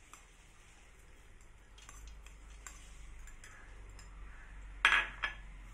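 A spoon tapping and scraping against a small glass bowl as food is scraped out of it, with light scattered clicks and two sharp clinks close together near the end.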